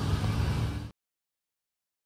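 KYMCO K1 125 scooter's fuel-injected single-cylinder engine idling steadily, cut off abruptly about a second in, after which there is silence.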